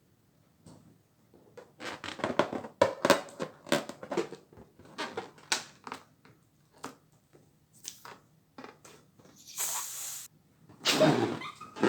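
Small water balloons being popped: a quick, uneven series of sharp pops and crackles, thinning out, then a short hiss and a louder cluster of pops near the end.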